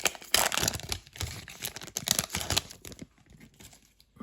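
Crinkling and tearing of a foil trading-card pack wrapper being opened by hand, a busy crackle for about three seconds that then dies down.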